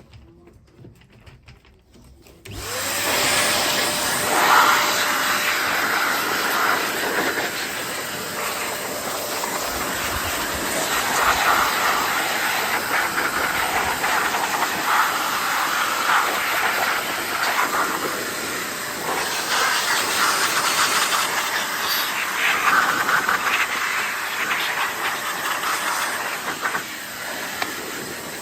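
Vacuum cleaner switched on about two and a half seconds in, its motor tone rising as it spins up, then running steadily, the suction noise swelling and easing as the nozzle is moved over the stroller.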